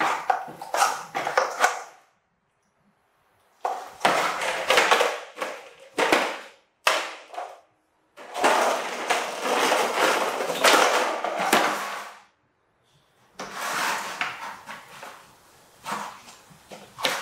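Large plastic toy dump truck being pushed and tipped about on a hard floor: its plastic wheels rolling and rattling and the body clattering, in several bursts with abrupt silent gaps between them, the longest stretch of rolling lasting about four seconds near the middle.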